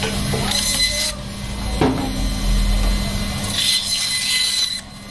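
Band saw running with a steady motor hum while its blade cuts through fish head and bone in two passes, one about half a second in and a longer one near the end.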